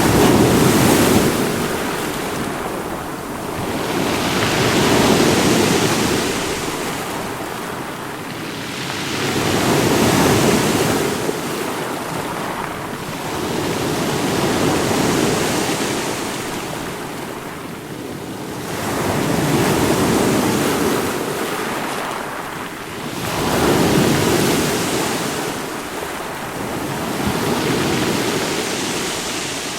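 Ocean waves washing onto a shore in slow, even surges, one swelling and falling away about every four to five seconds.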